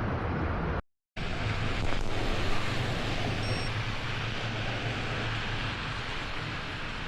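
Steady wind noise on the microphone with a low traffic rumble, as from a camera carried along a road. The sound cuts out completely for a moment about a second in.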